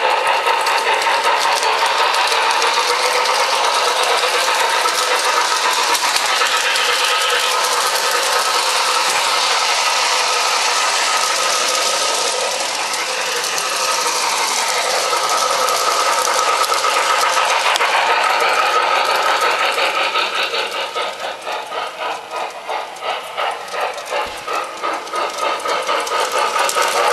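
Lionel model train running on three-rail tubular track: a steady electric motor whine with the wheels rattling and clicking over the rails. It grows quieter and pulses for a few seconds near the end.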